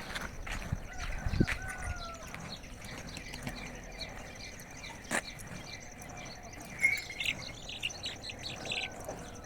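Small birds chirping in short bursts, busiest about seven to nine seconds in, over a steady high-pitched tone, with a few knocks and thumps near the start.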